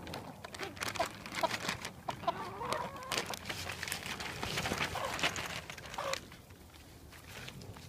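Backyard hens clucking, a scattering of short calls among sharp clicks and rustling, quieting after about six seconds.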